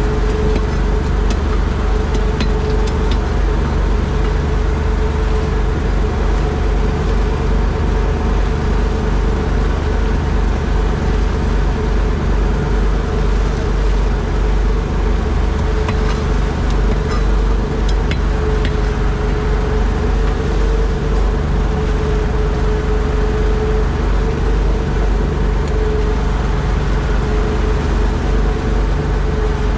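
A boat engine running steadily at constant speed: a loud, even drone with a steady hum.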